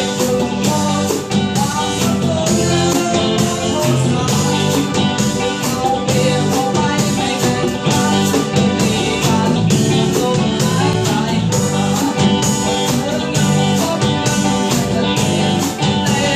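A rock band playing a song with a steady drum beat, electric guitars, bass guitar and keyboard, with a singer.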